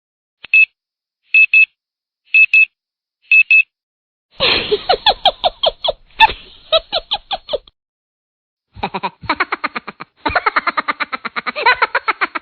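Stock sound effects played one after another: four short, high double beeps about a second apart, followed by two runs of rapid pulsing sounds.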